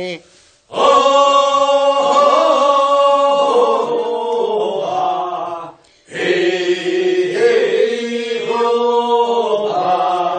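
Voices chanting a Korean rice-paddy weeding song (non-maeneun sori, first-weeding round) in two long, drawn-out sung phrases with a short break between them.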